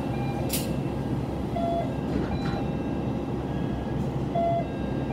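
Diesel railcar engine idling while the train stands at a station, a steady low rumble heard from inside the car. A brief hiss comes about half a second in, and two short high tones sound later.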